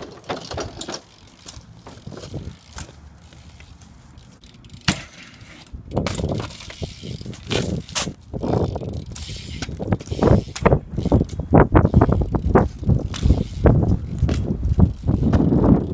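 BMX bike being ridden: tyres rolling with irregular knocks and rattles from the bike, quieter at first and then louder and busier from about six seconds in.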